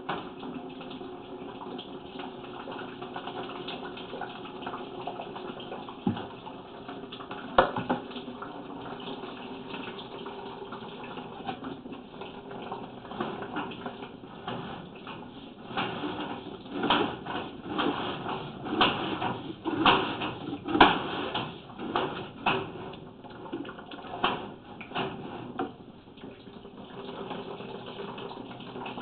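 Water running through a washing machine drain pipe over a steady low hum. A cluster of sharp knocks and clicks comes in the second half.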